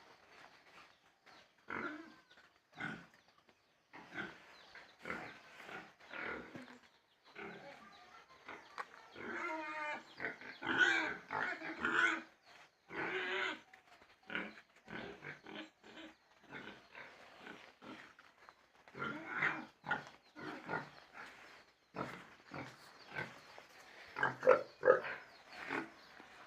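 Pigs grunting: many short grunts, with louder, longer calls about ten seconds in and again near the end.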